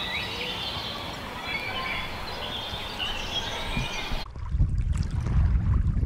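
Small birds chirping and twittering over a steady outdoor hiss. About four seconds in, this cuts off abruptly to a louder, gusty low rumble of wind on the microphone by the sea.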